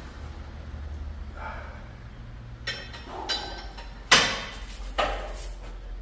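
Gym weights clanking: a few knocks, then one hard metallic clank that rings on briefly, and more knocks after it, over a steady low hum.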